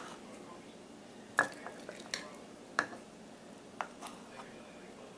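A kitchen utensil scooping thick sourdough starter out of a glass jar, with about five scattered, sharp clinks of the utensil against the glass.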